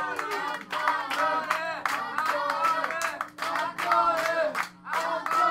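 Handclaps with several voices calling out and talking over each other, and a steady hum underneath.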